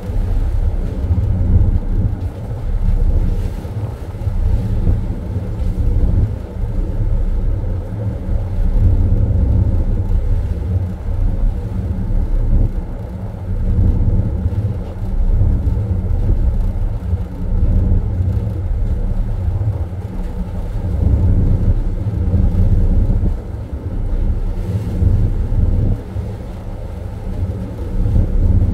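Ship's machinery running with a loud low rumble and a steady hum, swelling and easing every few seconds.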